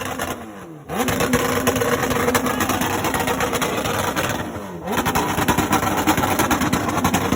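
Motorcycle engine held at high revs. Twice the throttle is let off, so the pitch falls and the level drops, then it is snapped open again, about half a second in and again around four and a half seconds in.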